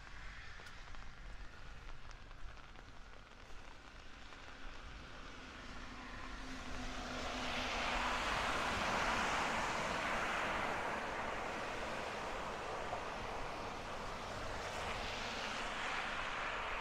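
A vehicle passing by: a rushing hiss that swells up about seven seconds in and stays loud, with a second swell near the end.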